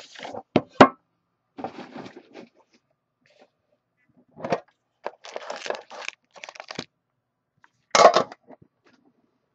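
Plastic and foil packaging crackling and rustling as a sealed trading-card box and pack are handled, in several short spells. Two sharp clicks come just under a second in.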